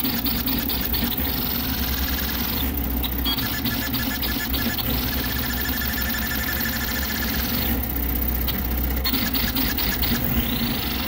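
Vz235 CoreXY 3D printer's stepper motors and toolhead running a high-speed print at 50k acceleration, with a fast, dense rattle from the constant direction changes. Over a steady low hum, a high whine swells and fades in long arcs as the moves speed up and slow down.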